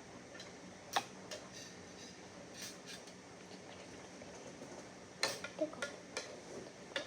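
Faint, scattered light clicks and taps of tableware: one sharp click about a second in, then a short cluster of clicks about five seconds in.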